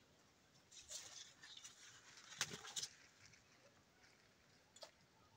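Faint rustling and a few short crackles of fig-tree leaves and branches being handled, about one second and two and a half seconds in.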